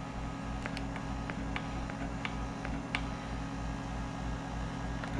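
Faint clicks of a GE wall oven's touchpad keys pressed repeatedly to raise the set temperature, over a steady low hum.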